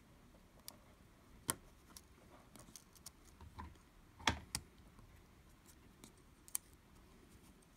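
Light, scattered clicks and taps of small tools and fingers on an iPhone 5's internals as its ribbon-cable connectors are pressed into place, with a sharper click about four seconds in.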